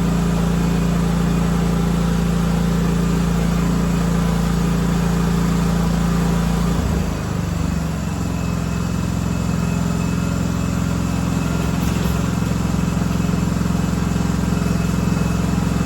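1976 John Deere 300 lawn tractor engine running steadily. About seven seconds in, its speed changes: the note shifts and dips briefly, then settles into a new steady run.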